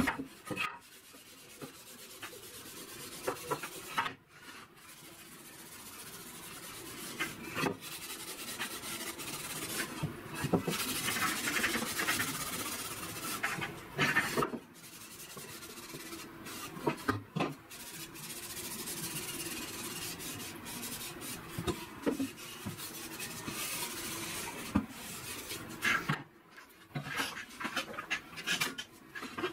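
A cloth rag rubbing back and forth over wooden boards in long scratchy strokes, with a few sharp knocks as the boards are handled and set down on the workbench.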